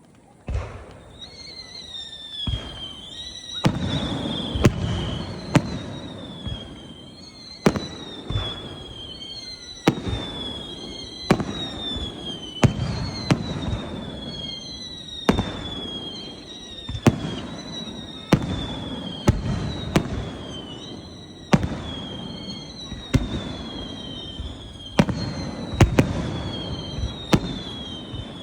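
Aerial fireworks going off in quick succession: a steady stream of sharp bangs, overlapped by many high whistles that each fall slightly in pitch.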